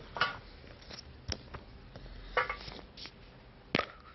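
Small hard objects being handled: a few scattered sharp clicks and knocks as a surprise egg is opened and its small toy figure taken out, the loudest near the end.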